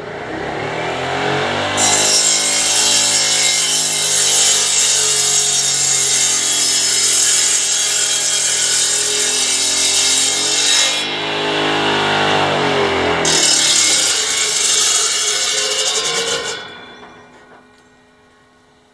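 Electric circular-blade sawmill spinning up, then cutting lengthwise through a log with a dense, loud cutting noise. The cutting drops away for about two seconds around two-thirds of the way through, then resumes for a few seconds before the saw fades out.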